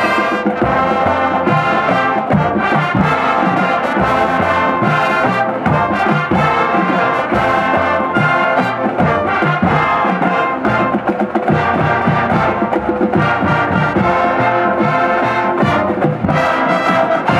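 A youth brass ensemble of trumpets, trombones and French horns playing a piece together, loud and full over a steady low beat. The music ends right at the close.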